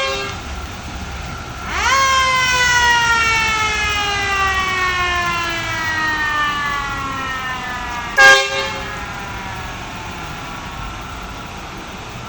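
Fire truck siren winding up quickly about two seconds in, then sliding slowly down in pitch over several seconds as it winds down. A short fire truck horn blast sounds about eight seconds in and is the loudest moment.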